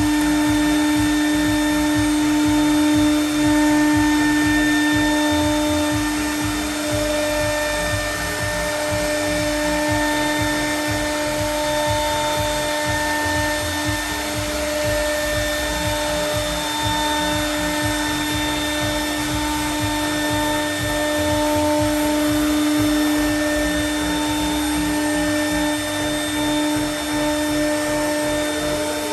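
CNC milling router cutting aluminium composite panel: the spindle runs at a steady pitch over a rushing cutting noise, with no breaks.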